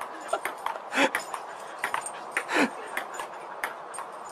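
A dog vocalising in short whines and yips, with a louder call about a second in and a longer one that slides down in pitch about two and a half seconds in.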